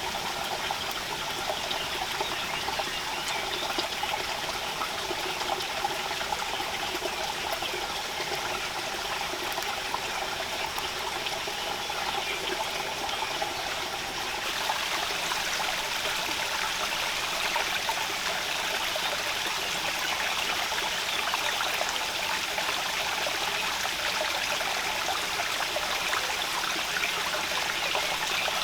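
Steady rain falling, a constant fine patter that grows slightly louder about halfway through.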